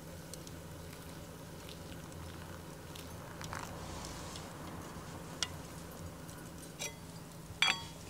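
Small wood-stove fire crackling with scattered light ticks over a low steady hum, and a few sharper clicks in the second half, the loudest a short ringing click near the end.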